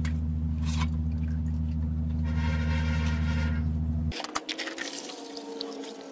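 Water sloshing and dripping as metal saw parts are handled in a bucket of electrolysis rust-removal solution, with a few sharp clicks of metal. A steady low hum runs under it and cuts off suddenly about four seconds in.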